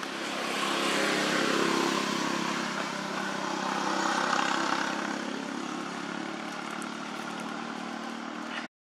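A motor vehicle engine running past nearby, swelling about a second in and again around four seconds, then easing off; the sound cuts off abruptly just before the end.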